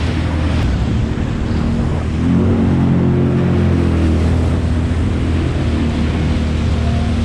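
Sea-Doo Spark jet ski under way: the drone of its three-cylinder engine over the hiss of water and spray. The engine note grows louder a little over two seconds in and eases back after about four and a half seconds.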